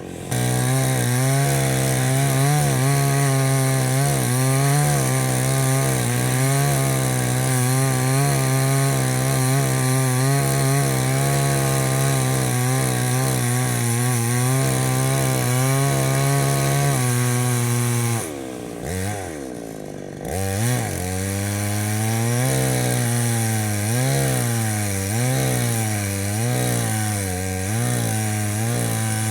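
Chainsaw running at full throttle and cutting into mango tree wood, its pitch wavering under load. About two-thirds of the way through, the engine drops off briefly, then revs back up and cuts again, its pitch rising and falling about once a second as the bar works through the wood.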